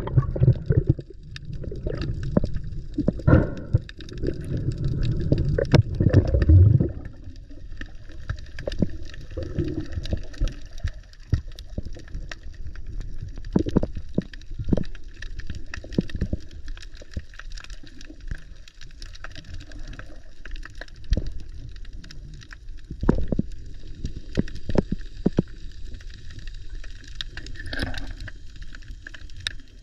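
Water sounds picked up by a submerged camera: splashing and low rumbling as the diver goes under for the first seven seconds or so, then muffled underwater ambience with bubbly gurgles and scattered sharp clicks.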